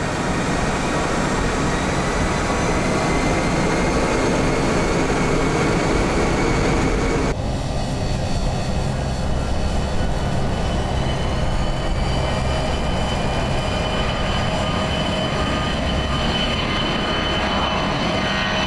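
Four jet engines of an Ilyushin Il-76 cargo plane at takeoff power: a steady dense rush with a high whine. The sound changes abruptly about seven seconds in, and a few seconds later the whine slowly rises in pitch.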